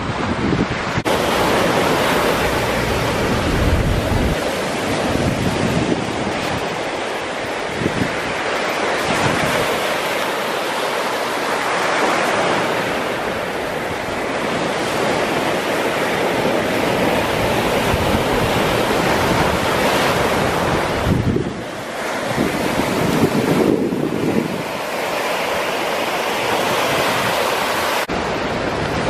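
Small Caribbean surf breaking and washing up a sandy beach, a steady rush that swells and eases as waves come in. Wind buffets the microphone with low rumbles now and then.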